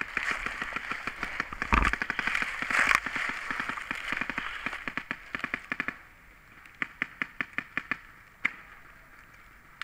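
Paintball markers firing in rapid strings of pops, about ten or more shots a second, for the first six seconds or so. Then the fire slackens to a short burst of about five pops and a single shot a little later.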